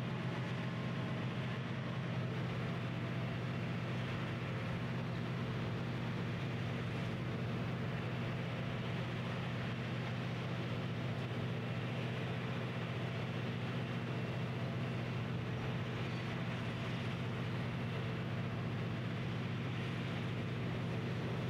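A large engine running steadily, a low, even drone with no changes.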